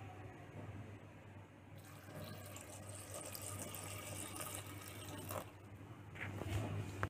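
Water poured from a steel bowl onto cut bottle gourd pieces in a pressure cooker: a faint splashing trickle from about two seconds in until about five and a half seconds, over a steady low hum.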